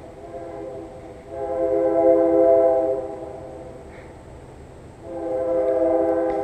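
Train horn sounding two long blasts, each a chord of several steady tones, the first starting about a second in and the second near the end.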